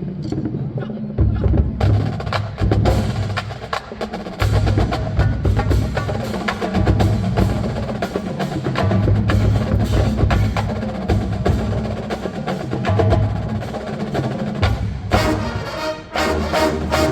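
College marching band drumline playing a percussion feature: rapid stick and rim clicks on snares and tenor drums over heavy bass drum hits. About fifteen seconds in the rest of the band joins, thickening the sound.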